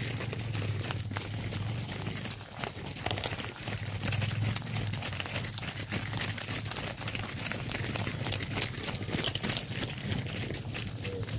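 Irregular crunching and clicking over a steady low hum.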